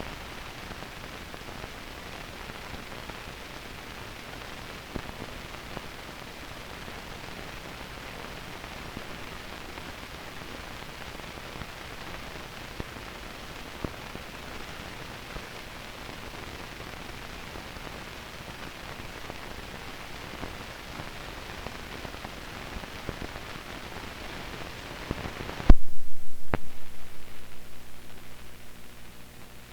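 Steady hiss and crackle of an old film soundtrack with no programme sound on it. Near the end a sudden loud thump sets off a low, pulsing buzz that fades out over about four seconds.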